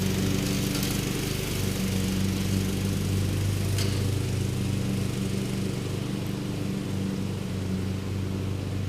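A small engine drones steadily at an unchanging speed, with a single faint click about four seconds in.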